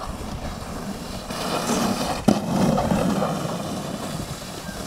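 Red plastic sled scraping and hissing over packed snow, growing louder as it comes close and then fading, with one sharp knock about two seconds in.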